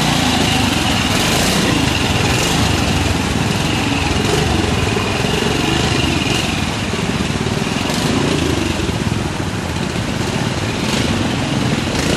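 BSA B40 trials motorcycle's single-cylinder four-stroke engine running as it picks its way up a rocky stream bed, over the steady rush of the stream water.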